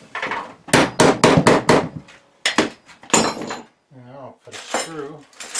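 Hammering: a quick run of sharp knocks, about five a second, as a wooden strip is driven into a metal bracket channel. A few more knocks and a brief metallic ring follow. A few muttered words come near the end.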